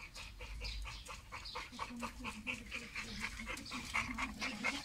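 Chow chow dogs panting and whimpering, with many short snuffling clicks; a low whine starts about two seconds in.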